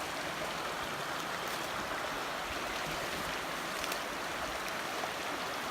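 Creek water rushing steadily past, a strong current running around a log crossing.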